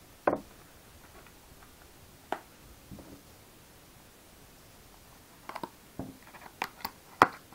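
Foil trading-card pack wrapper being handled and torn open: a run of short, sharp crinkles and crackles in the last couple of seconds, after a few isolated light clicks earlier on.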